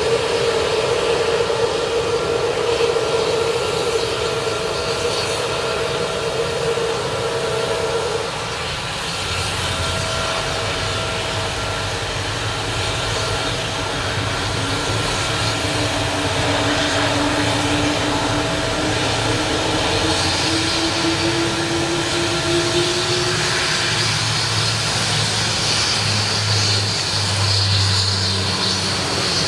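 Boeing 777-200ER's twin jet engines running at low power, a steady loud rush of noise with whining tones through it. About halfway through one tone slowly climbs, and a high whine grows stronger near the end.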